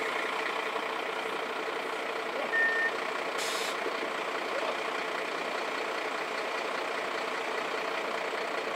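An engine running steadily at an even speed, with a short high beep about two and a half seconds in and brief hisses a second later and again near the end.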